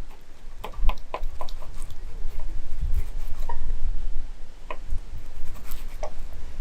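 Wood campfire crackling: irregular sharp pops and clicks over a low rumble.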